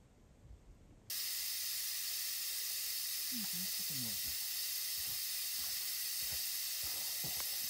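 Air hissing steadily out of a 4WD's Milestar Patagonia tyre as it is let down to a lower pressure for a four-wheel-drive track. The hiss starts suddenly about a second in and holds at an even level.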